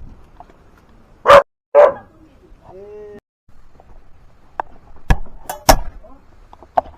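A dog barks twice in quick succession about a second in, followed by a few sharp knocks later on.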